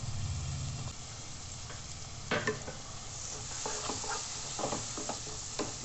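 Chopped tomatoes and onions frying in oil in a kadai, with a steady sizzle. From about two seconds in, a wooden spatula stirs them, its strokes tapping and scraping the pan at an uneven pace.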